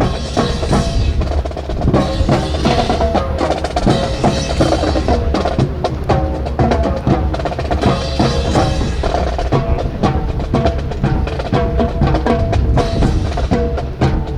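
Drum-led music played to accompany a rifle drill: a continuous cadence of sharp drum and percussion strikes under a pitched melody line.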